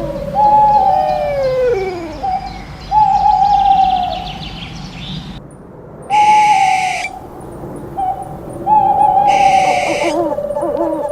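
Owl hooting: four drawn-out hoots, each falling in pitch, about every two and a half seconds, some with a short note just before. A steady wavering tone runs underneath at the start and near the end.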